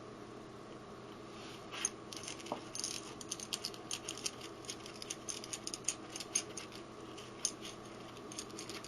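Light, irregular clicks and rattles of small hard parts being handled: the bottom piece of a plastic bearing steady rest is picked up and fitted. The clicks start about two seconds in, over a steady low hum.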